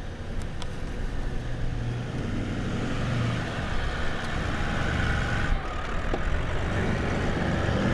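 Engine of a Toyota 79 series Land Cruiser running at low revs, a steady low rumble, as the vehicle crawls down a deeply rutted sand track.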